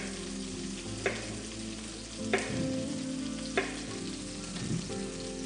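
Onions and peppers sizzling steadily in oil in a frying pan, with a sharp knife tap on the cutting board about every second and a quarter as a green zucchini is cut.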